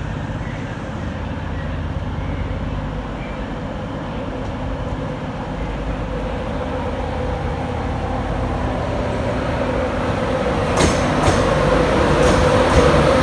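Class 91 electric locomotive at the head of an InterCity 225 set drawing slowly into the platform, its running noise growing steadily louder as it approaches, with a humming tone rising near the end and a few sharp clicks.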